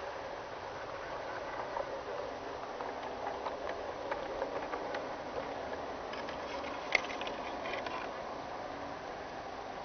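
G scale model train running on garden track, heard from a camera riding along with it: a steady rolling run of wheels and motor with scattered clicks, the sharpest about seven seconds in.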